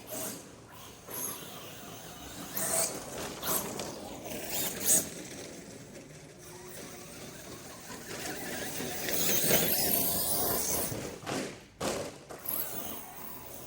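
Mechanical rattling and clicking from a broken radio-controlled truck, with irregular bursts and a longer loud stretch about nine seconds in.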